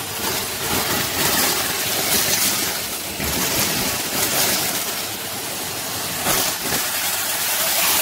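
Numatic Henry vacuum cleaner running, its metal wand sucking sawdust bedding out of a plastic cage tray. The rush of suction is steady, with its hiss swelling and easing several times as the nozzle moves over the debris.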